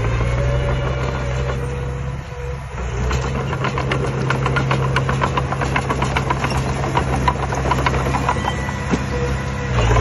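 Small Komatsu D20P crawler bulldozer's diesel engine running steadily, dipping briefly about two seconds in, with a rapid clicking laid over it through most of the middle.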